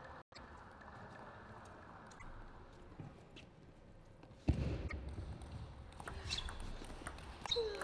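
Scattered sharp clicks of a table tennis ball off bats and table in a large hall, over background hall noise that rises suddenly and stays louder about halfway through.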